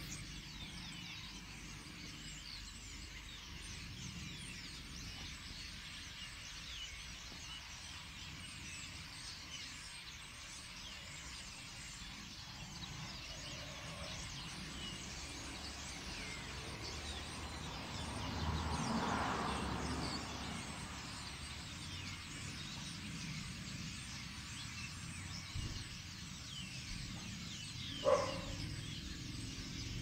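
A large flock of birds in a bare tree, calling together in a continuous dense chatter of many overlapping high chirps and whistles. A swell of low rumbling noise rises and fades about two-thirds of the way through, and a short, louder tone stands out near the end.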